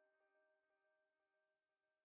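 Faint ambient background music with several held tones, fading out toward near silence.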